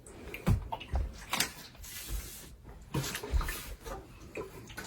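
Handling noises: irregular knocks, a few low thumps and rubbing as a person moves about carrying and handling things.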